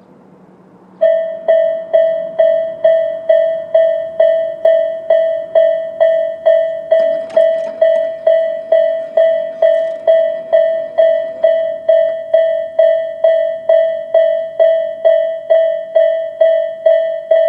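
Japanese railway level-crossing alarm (the Tobu Railway "sound A" electronic bell) starts about a second in and rings steadily, a loud repeated ding at a little over two strikes a second: the crossing warning that a train is approaching.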